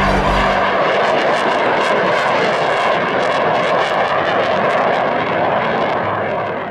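Jet noise of a HAL Tejas fighter's single General Electric F404 turbofan as the aircraft flies past in a display: a loud, steady rushing noise that begins to fade near the end.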